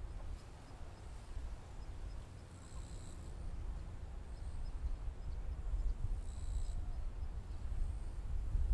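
Outdoor airport ambience: a steady low rumble, with a faint high chirp about every three and a half seconds.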